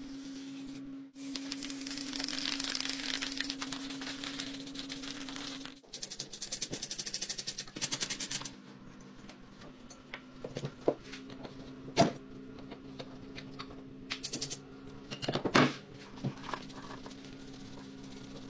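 Protective film being peeled off a painted plastic dirt-bike fender, a rustling hiss for the first six seconds or so. Then comes a run of rapid ticking and scattered small metal clicks and knocks of hand tools on the rusty engine and carburettor, the sharpest about twelve and fifteen seconds in. A steady low hum runs underneath.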